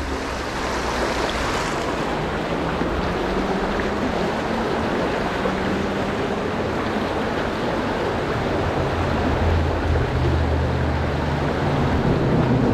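River water rushing past, a steady wash of current noise.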